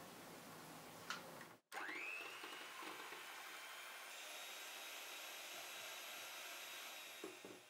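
Electric hand mixer with twin metal beaters starting up with a rising whine, then running steadily as it whips cream in a glass bowl. A higher whine joins about four seconds in, and it cuts off near the end.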